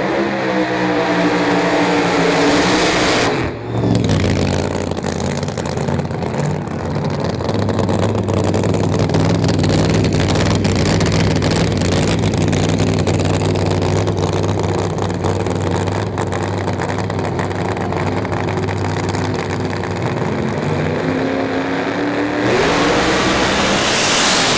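Supercharged V8 engine of a Funny Car drag racer, loud throughout. The revs climb at first and break off about three and a half seconds in. Then comes a long, steady, deep engine note with an uneven crackle, and near the end the revs climb again as the car launches.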